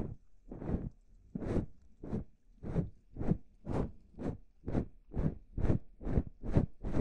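Rhythmic swishing strokes close to a microphone, like ASMR rubbing or brushing, each stroke swelling and fading, about two a second and gradually quickening.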